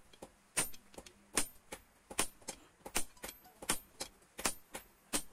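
Hand hammer striking a red-hot rebar end on a small steel anvil: a steady rhythm of about two to three blows a second, alternating heavier and lighter, with a short high metallic ring after the heavier ones.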